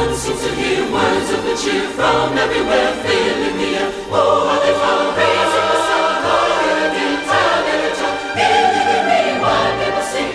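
Choral music: a choir singing sustained chords over an instrumental backing with a bass line that moves every second or so.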